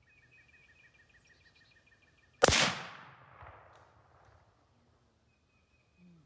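A single rifle shot from a .243 Winchester Model 88 lever-action rifle, about two and a half seconds in. A rolling echo dies away over the next two seconds.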